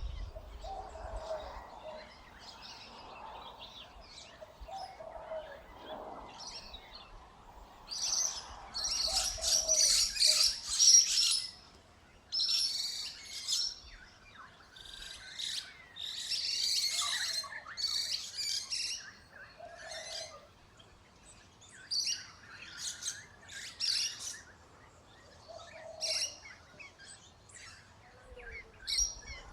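Birds chirping and calling in quick, busy bursts, loudest in two flurries about eight seconds in and again around sixteen seconds.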